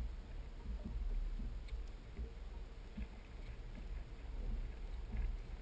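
Uneven low rumble of wind and water around a small boat on a lake, with a few faint ticks.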